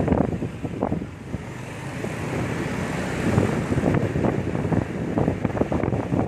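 Riding on a motorcycle in city traffic: wind buffets the microphone in uneven gusts over the running motorbike and the surrounding road traffic.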